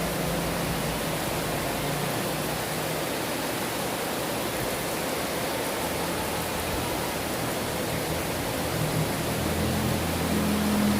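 Heavy rain pouring steadily as an even hiss, with a low hum that comes up a little in the last two seconds.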